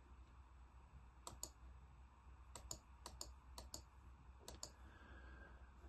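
Faint clicking at a computer: about ten sharp clicks, most in quick pairs, over low room tone.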